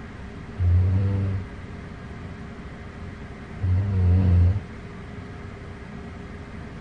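A person snoring: two low, buzzing snores about three seconds apart, each lasting about a second.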